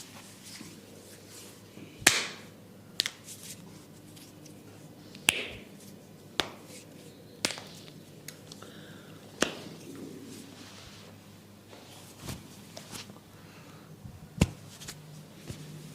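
Sharp slaps and snaps from a barber's hands during an Indian head massage: about eight crisp cracks at irregular gaps of one to two seconds, over a faint steady hum.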